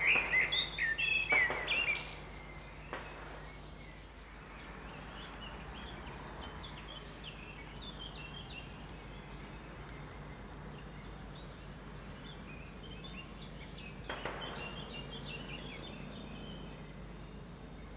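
A few distant small-calibre rifle shots from a shooting range, short dull reports with a brief echo: two in the first few seconds and another about 14 seconds in. Birds chirp throughout, and a steady high insect buzz stops about four seconds in.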